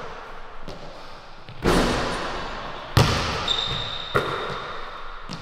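A basketball bouncing and thudding on a hardwood gym floor, a few separate hits with echo in the large hall, the loudest about three seconds in. A thin, steady, high squeak runs for over a second in the second half.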